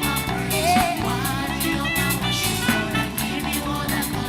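Live worship band playing between sung lines of a praise chorus, with bass, chords and drums.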